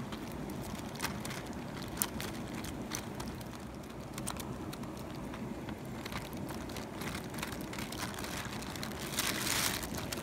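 Thin plastic bag crinkling as it is held and lifted, with small live fish flipping inside it: scattered sharp ticks, then a louder rustle about nine seconds in.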